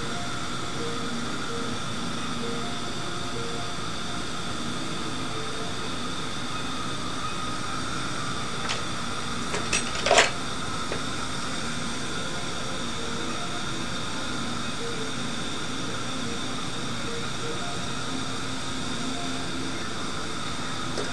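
Steady machine hum with a few sharp clicks about nine to ten seconds in, the last the loudest.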